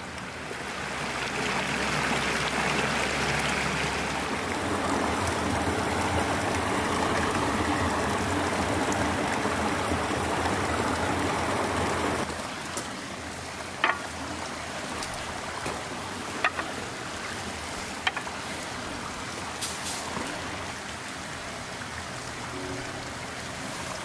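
Shallow mountain creek running over rocks, a steady rush of water that drops to a softer flow about halfway through, with a few light clicks in the second half.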